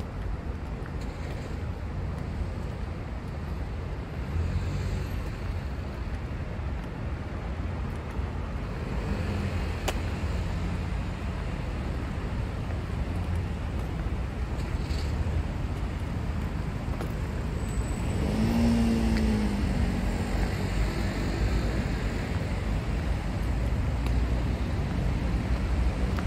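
Street traffic on a wet road: a steady rumble and hiss of cars driving by. About two-thirds of the way in, one vehicle passes closer, its engine tone rising and then falling.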